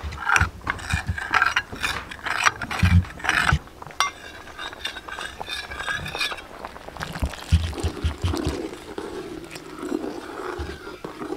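Metal ladle scraping and clinking against a ceramic bowl while tapioca flour slurry is stirred, a quick run of knocks in the first few seconds, then quieter stirring.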